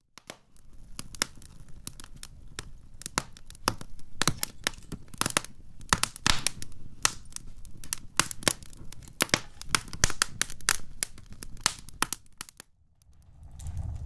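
Wood fire crackling in a fireplace: a dense, irregular run of sharp pops and snaps, some much louder than others. About thirteen seconds in the crackling stops and a low, steady rumble of flames takes over.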